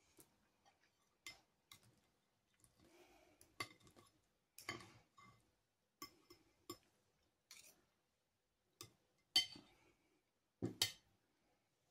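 Metal fork and knife clinking and scraping against a ceramic plate while cutting food: a dozen or so scattered short clicks and scrapes, the loudest a little after nine seconds in and again near the end.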